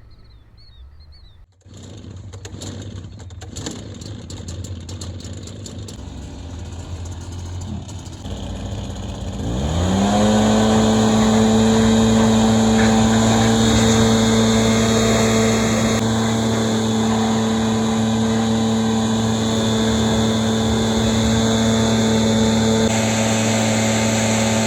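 Cat 305 mini excavator's diesel engine running low, then throttled up about ten seconds in: the pitch rises quickly and settles into a steady, loud high-rpm drone with a whine.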